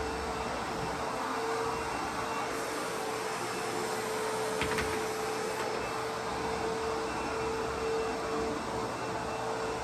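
ProTeam MegaVac backpack vacuum cleaner running steadily: an even rush of air with a steady motor whine, and a light click about halfway through.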